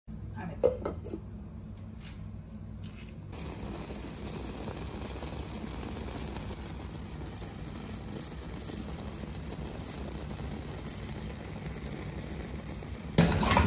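A clay pot of coconut, dried-prawn and vegetable peera cooking over a gas stove: a steady low hum with a hiss of cooking, and a few clinks in the first three seconds, likely the glass lid. Near the end a metal ladle starts stirring and scraping the mixture in the pot.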